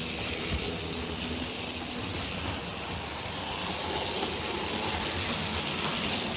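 Model trains running on the layout track: a steady rolling noise of small wheels on rails, with a faint motor hum that stops about two seconds in.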